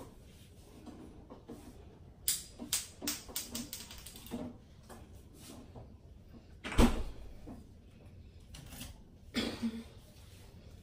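Kitchen handling noises: a run of clicks and light knocks, then one loud heavy thump about seven seconds in, like a door shutting, and a shorter knock near the end.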